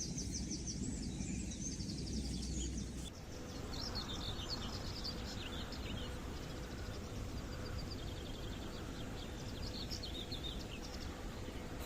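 Several wild birds singing, with rapid chirps and trills, over steady low outdoor background noise; the sound changes abruptly about three seconds in.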